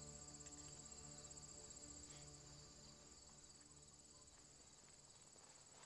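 Faint crickets chirring steadily in a field, over a soft low hum that fades out after about three seconds.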